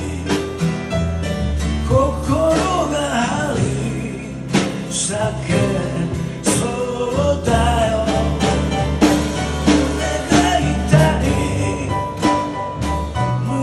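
A man singing a slow blues-style song to his own strummed acoustic guitar, his voice wavering with vibrato over steady low bass notes.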